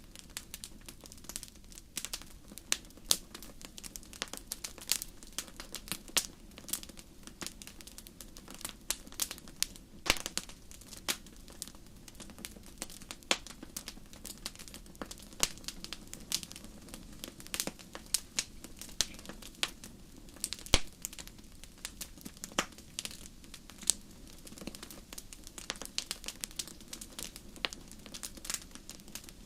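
Wood fire crackling in a fireplace, with frequent irregular sharp pops and snaps of varying loudness over a low steady rush of the flames.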